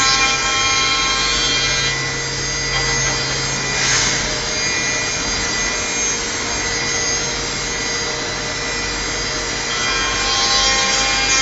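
Hermle five-axis CNC machining centre milling a metal part: a steady whine from the spindle over the continuous hiss of the cutter and coolant, swelling briefly about four seconds in and again near the end.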